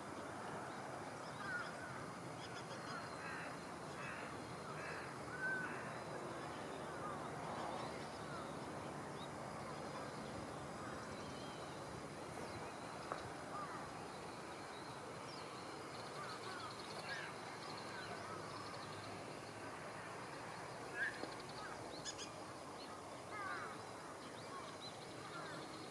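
Outdoor ambience: many short bird calls and chirps scattered over a steady background hiss, a few calls louder than the rest.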